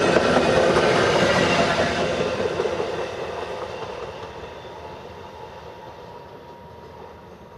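VIA Rail passenger train passing, the rush and clatter of its cars and wheels on the rails fading steadily as the last car pulls away.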